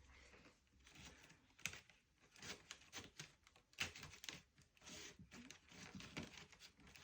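Faint, irregular clicks, scratches and rustles of splint strands being handled and worked through a chair's woven splint seat.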